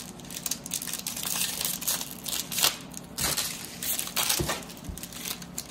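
Foil wrapper of a trading-card pack crinkling and tearing as the pack is ripped open by hand, in a run of short crackles.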